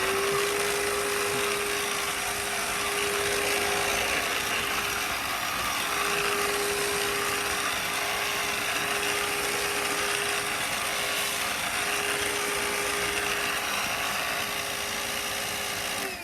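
Black & Decker cordless lithium pet vacuum cleaner running at full power: a steady motor whine over a rushing of air. Near the end it is switched off and the motor whines down.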